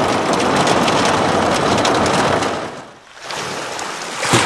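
Heavy rain pelting the windows and roof of a van, heard from inside as a loud, dense crackle for about three seconds. Then it drops away and waves wash over a pebble beach near the end.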